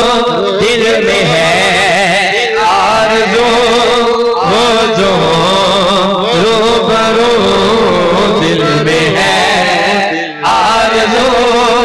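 A man singing a naat in one long melismatic line, the pitch wavering up and down throughout, with a short break about ten seconds in.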